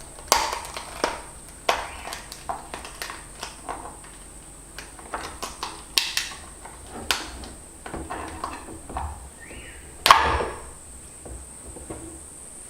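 Raw mud crab being broken apart and cleaned by hand: a string of sharp cracks, clicks and knocks of shell, the loudest about ten seconds in.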